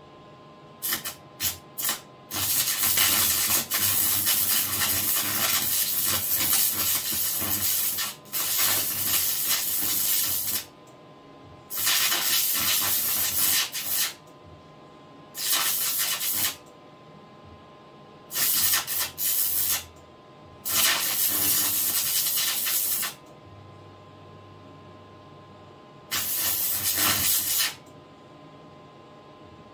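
Carbon arc lamp being struck again and again: a few short sputters about a second in, then bursts of loud arc hiss lasting one to six seconds, each cutting off abruptly. A steady electrical hum from the power supply fills the gaps.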